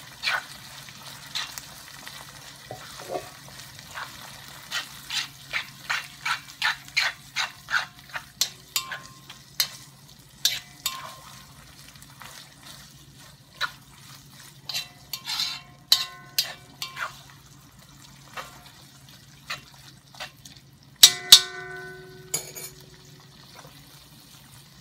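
A utensil stirring and tossing pasta in a hot cast iron wok: repeated scraping clicks of the utensil against the iron over a light frying sizzle, thinning out partway through. Near the end there is a louder ringing metallic clank.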